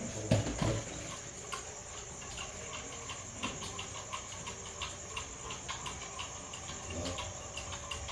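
Crickets trilling steadily in a high, continuous chorus, with two low knocks in the first second.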